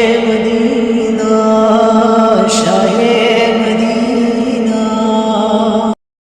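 Male voice singing a naat a cappella in long, held notes over a layered vocal drone, with no instruments; it cuts off abruptly about six seconds in.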